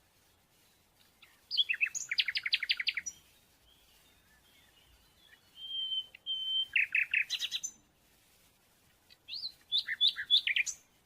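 A songbird singing three phrases of rapid, high chirps and trills, with pauses between them; the middle phrase opens with a couple of steady whistled notes.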